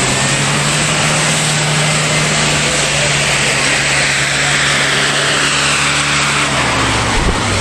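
Mahindra Thar's diesel engine pulling steadily under load as it drives through deep mud past the camera. Its tyres churn and spray mud, and that noise swells in the middle of the pass. The engine note drops away near the end.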